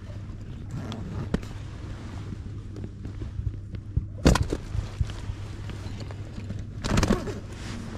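Knocks and clatter of handling in a fishing boat, with two louder thumps about four and seven seconds in, over a steady low hum.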